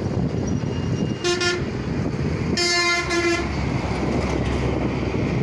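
Road traffic noise with a vehicle horn honking twice: a short honk about a second in, then a longer one a moment later.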